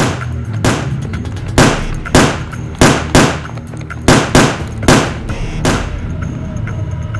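A string of about nine pistol shots, irregularly spaced about half a second to a second apart, each with a short ringing tail; they stop about six seconds in, leaving a steady low background of music.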